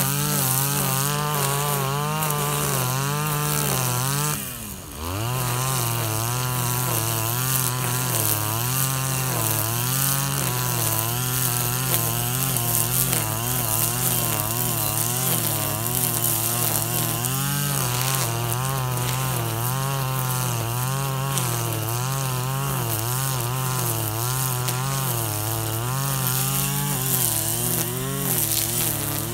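KAAZ URP260AL-TB26 25cc brush cutter engine running at high revs while cutting grass, its pitch wavering up and down as the load changes. About four and a half seconds in, the revs drop sharply and pick straight back up.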